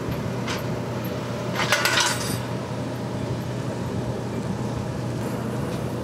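Steady low engine hum of airport apron machinery, with a short burst of metallic clinking and rattling about two seconds in.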